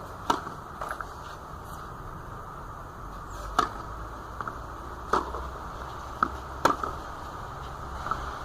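Tennis ball being struck by racquets and bouncing during a rally: a series of sharp pops at uneven intervals, some loud and some faint, over a steady hiss.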